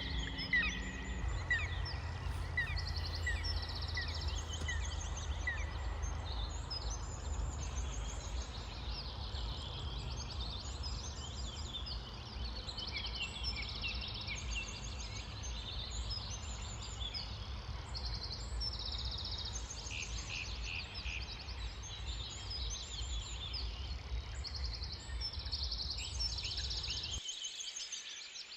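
Several small birds singing and chirping together, with rapid trills and a chirp repeated about twice a second at the start, over a steady low rumble that cuts off suddenly near the end.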